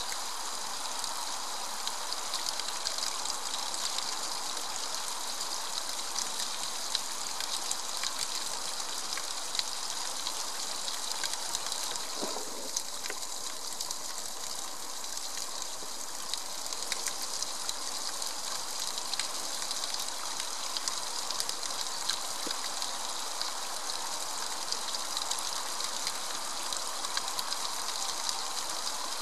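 A small cascade of water splashing steadily down a rock face, with many little drips and splashes.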